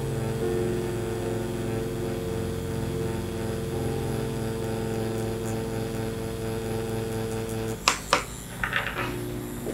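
INKIN rotary tattoo machine (3.5 mm stroke) humming steadily as it packs solid black ink into synthetic practice skin. It stops about eight seconds in and is followed by a few sharp knocks as the machine is lifted away.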